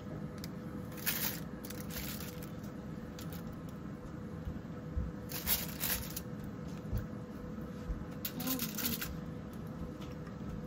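Aluminium foil crinkling in three short rustling bursts as hands push chicken pieces around on a foil-lined baking tray, over a faint steady hum.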